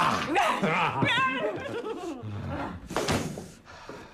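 People's voices in animated, wordless exclamation, with a wavering high-pitched cry about a second in and a loud, noisy burst about three seconds in.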